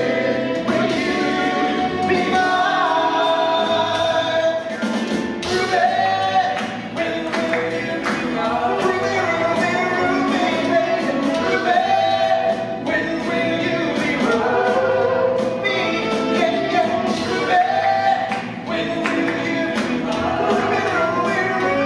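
Male vocal group singing a 1950s rhythm-and-blues, doo-wop style rock-and-roll song in harmony, backed by a band with drums keeping a steady beat.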